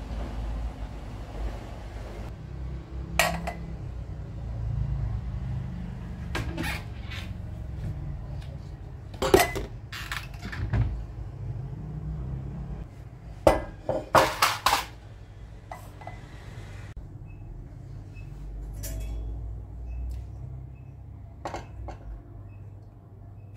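Household clatter: dishes and cutlery clinking and knocking as they are handled, with cupboard doors opening and closing. The sharp knocks come scattered, bunched into a quick flurry about two thirds of the way through, over a low steady rumble.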